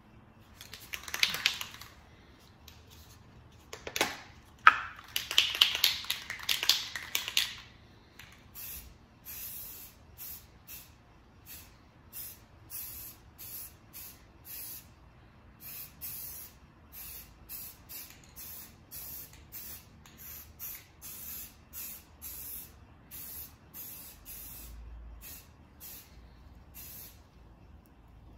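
Rust-Oleum Camouflage aerosol spray paint can being shaken, its mixing ball rattling, twice in the first few seconds. It is then sprayed in a long run of short, separate bursts of hiss, about one a second, lasting some twenty seconds.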